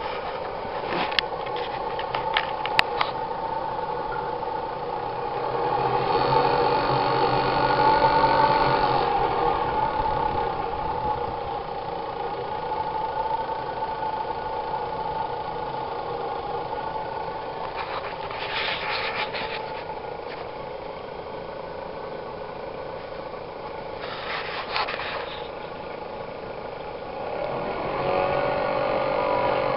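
Small engine running steadily on gas from a homemade downdraught wood gasifier. A few sharp clicks come near the start, and two short bursts of noise come later.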